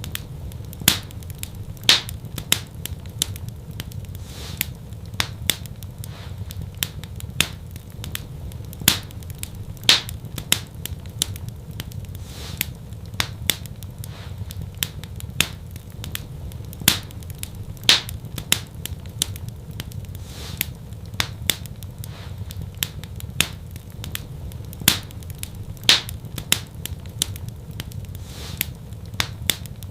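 Wood fire crackling in a fireplace: irregular sharp pops and snaps, several a second, some louder than others, over a steady low rumble of the flames.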